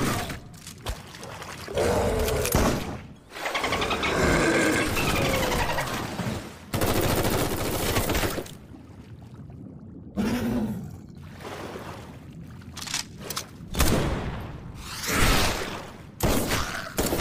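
Cartoon gunfire sound effects: repeated bursts of shots and impacts, with pitched cries between them.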